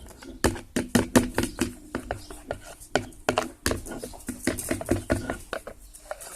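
A utensil stirring glue in a bowl for slime, clicking and knocking against the bowl several times a second in an uneven rhythm.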